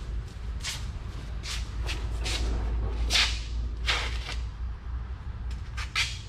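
A large sheet-metal trunk pan being carried and handled: a string of short scraping and rustling swishes as the panel flexes and brushes, over a low steady hum.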